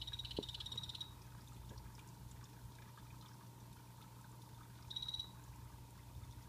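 Sky-blue poison dart frog (Hyloxalus azureiventris) calling: a fast, high buzzing trill that stops about a second in, then a short burst of the same trill about five seconds in. Underneath runs the steady trickle of the vivarium's waterfall and a low hum.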